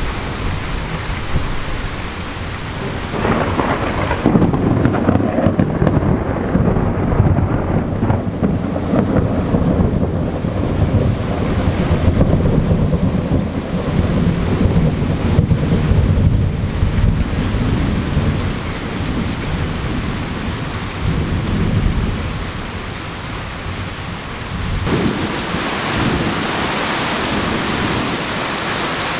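Thunderstorm: heavy rain pouring down, with thunder rumbling through it from about three seconds in. Near the end the rain becomes a brighter, hissier downpour.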